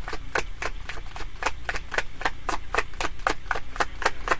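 A deck of tarot cards being shuffled by hand, the cards snapping against each other in a quick, even run of clicks, about five a second.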